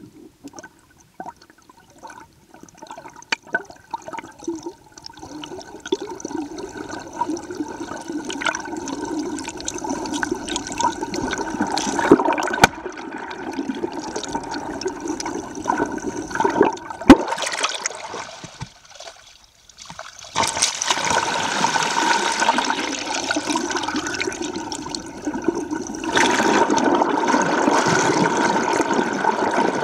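Water rushing and gurgling past an underwater camera beside a sailing Hobie Cat catamaran's hull, heard from below the surface. The rush builds, drops away almost completely for a moment a little past halfway, then comes back louder, with a couple of sharp knocks along the way.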